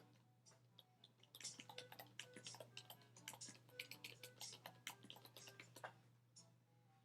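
Faint, rapid typing on a computer keyboard: a quick run of keystrokes starts about a second in and stops about six seconds in.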